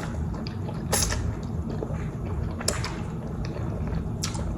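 Eating sounds from a bowl of ramen: three short, wet mouth clicks or slurps about a second and a half apart, over a steady low rumble.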